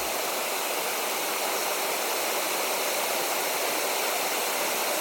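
Steady rushing of fast-flowing river water, an even hiss with no change throughout.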